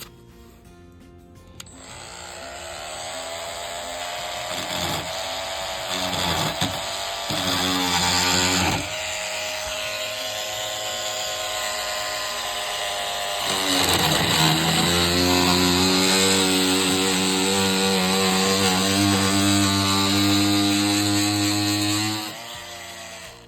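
Makita oscillating multi-tool running and cutting into deck wood with a steady high whine. The pitch sags several times as the blade bites under load, and the tool grows louder about halfway through before stopping shortly before the end.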